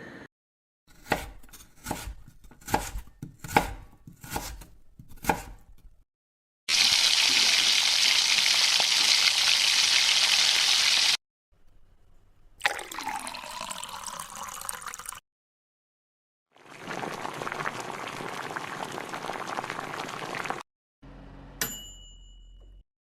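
Kitchen sound effects in sequence: about seven sharp chopping strikes of a knife, then a tap running hard for a few seconds, then liquid poured into a vessel with a falling then rising pitch, then a steady hiss for about four seconds. Near the end comes a single sharp click with a brief ringing tone.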